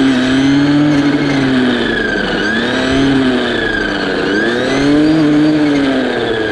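Gas string trimmer fitted with a chainsaw-tooth metal brush blade, its small engine running at high revs; the engine pitch sags twice and picks back up as the blade takes load cutting into saplings.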